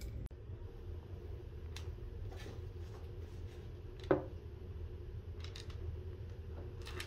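Small ball rolling and clicking against the walls of a wooden maze game under its acrylic cover as the board is tilted: faint scattered light clicks over a low steady hum. A brief louder voice sound comes about four seconds in.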